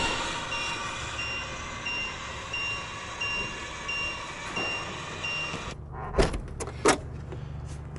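Electric hangar door running while its push button is held, a warning beeper sounding about every 0.7 seconds over the motor noise; both stop suddenly near six seconds in. Then two sharp clunks from the Cessna 182's cabin door latch.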